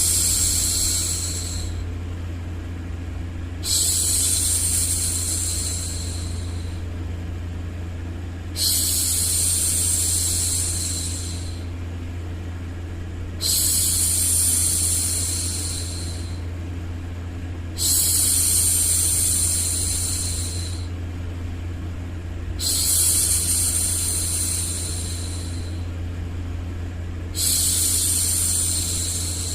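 A woman's voice hushing 'shhh' over and over, each shush starting suddenly and fading over about three seconds, one roughly every five seconds. Under it runs a steady low hum of background white noise.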